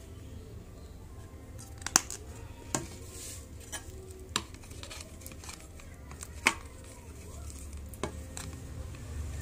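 Several sharp, irregular clicks and taps of a plastic shampoo bottle and a clear plastic cup being handled, over a steady low hum.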